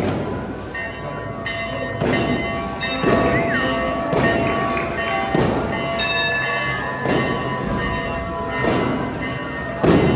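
Church bells ringing: irregular strikes about every second or so, each leaving its tones ringing on under the next.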